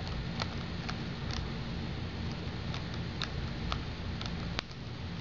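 Typing on the keyboard of an Acer Aspire One 10 (AOD150) netbook: light, irregular key clicks, with one sharper click about four and a half seconds in, over a steady low hum.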